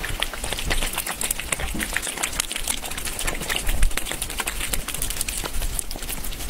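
Two cats chewing and licking hanging treat strips: a fast, irregular run of small clicks.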